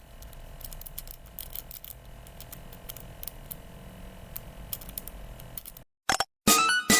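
A lock-picking rake scraping and clicking against the pins inside a five-pin FAI by Viro 555 padlock, metal on metal, in quick irregular strokes. The sound cuts off suddenly about six seconds in, and music starts near the end.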